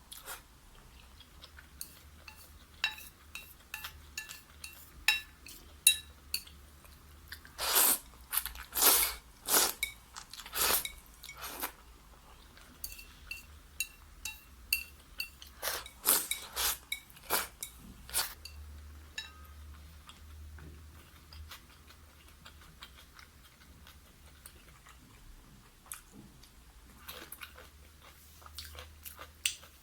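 Crispy fried chicken being bitten and chewed close to the microphone: loud crunches come in clusters, with quieter chewing between.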